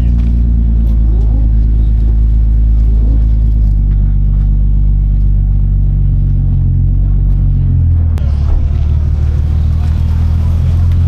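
Car engine running at low revs while driving slowly, its low note shifting about four seconds in and again near eight seconds as the revs change.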